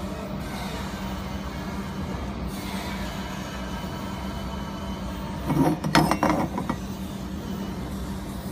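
Steady machine hum, with a short burst of metallic clinks and knocks about five and a half seconds in.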